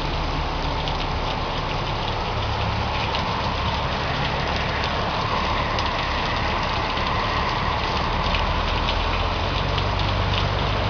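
A vehicle engine running in heavy rain, its low hum growing a little louder near the end, over a steady hiss of rain with small drop ticks.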